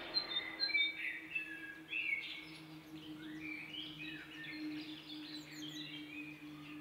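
Several small songbirds chirping and whistling in quick short phrases, some sliding up or down in pitch, over a faint steady low hum.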